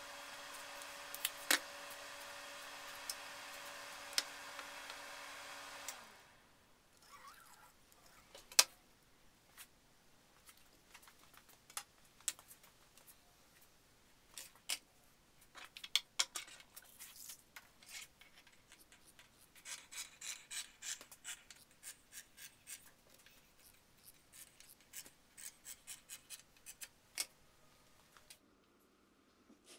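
Scissors cutting fiberglass cloth: scattered snips, then a quick run of about two to three snips a second in the second half, with the cloth rustling. A steady hum stops about six seconds in.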